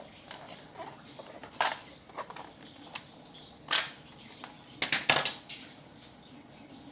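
Hand tools being handled: a screwdriver set clicking and clattering, metal against plastic, in a series of sharp separate knocks with the loudest a little past the middle and a quick cluster about five seconds in.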